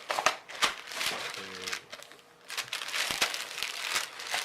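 Crinkling and rustling of a packaging bag being opened and handled, in irregular crackly bursts with a brief lull a little past the middle.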